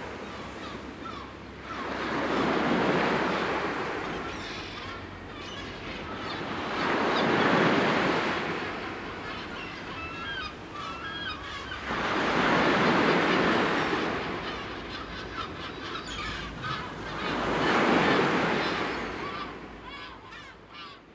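Sea waves breaking and washing in, four swells about five seconds apart, with short high calls between them; the sound fades out at the end.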